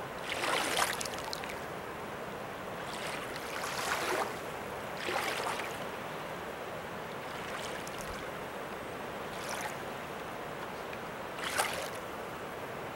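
Floodwater sloshing: a steady rush of moving water with about five brief swishing splashes at uneven intervals, the loudest near the end.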